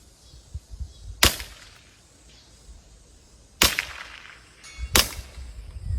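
Three sharp airsoft gun shots, single cracks well spaced: the second about two and a half seconds after the first, the third about a second and a half later.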